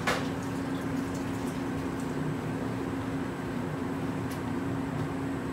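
Steady hum of a commercial kitchen extractor hood fan. A sharp knock comes right at the start, and a few faint ticks follow about four seconds in.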